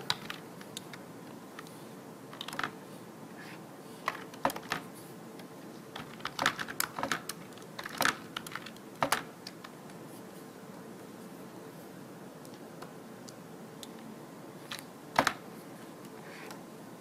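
Computer keyboard typing: short, scattered bursts of key clicks with quiet gaps between them, the loudest a single click about fifteen seconds in.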